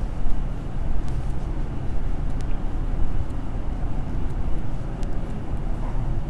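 A steady low rumble of background noise, with a few faint ticks.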